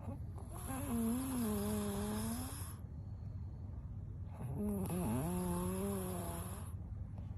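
A woman snoring while fast asleep: two long, drawn-out snores, each lasting about two seconds with a pause between them, over a steady low rumble.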